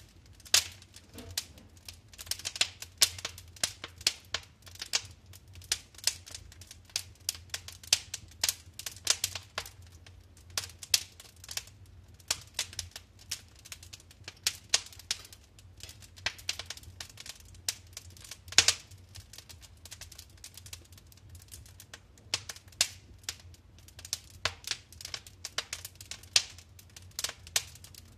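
Wood fire burning in a fireplace, crackling and popping irregularly, with a louder pop about two-thirds of the way through.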